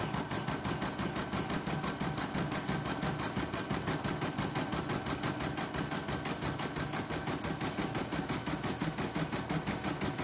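CNY E960 computerised embroidery machine stitching a test design, its needle mechanism running in a fast, even rhythm as the hoop carriage moves. This is a test run to check whether the embroidery still shifts out of place.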